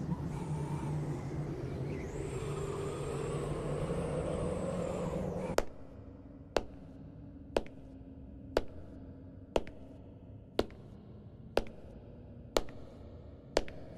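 A steady droning bed of sound cuts off suddenly about five and a half seconds in. Then come slow, evenly paced footsteps on a stone floor, one sharp click each second.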